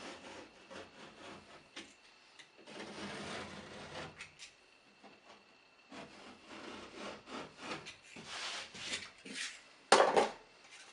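Scored gypsum drywall being broken and scraped away from its face paper: uneven scraping and crumbling strokes, with one loud sudden crunch near the end.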